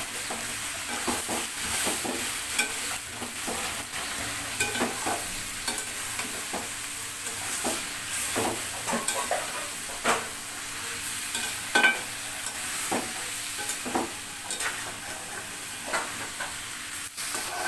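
Pumpkin and shrimp sizzling as they are sautéed in a stainless steel karahi, with a metal spatula scraping and clinking irregularly against the pan as it is stirred. One sharper clink comes about twelve seconds in.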